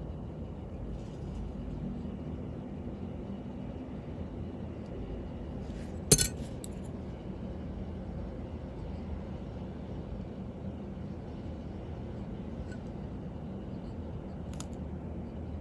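A steady low background rumble, with one sharp metallic click about six seconds in and two faint ticks near the end, from small watchmaker's tools at work on a watch movement.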